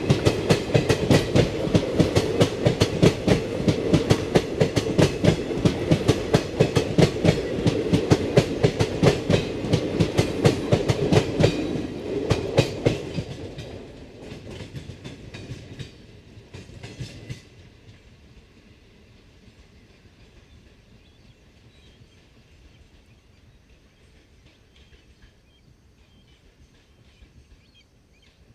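Passenger train coaches running past on the rails, their wheels clattering in a fast, steady rhythm over the rail joints. The clatter is loud for about the first half, then fades as the train draws away, with one last short burst of clicks about two-thirds of the way in, leaving only faint background.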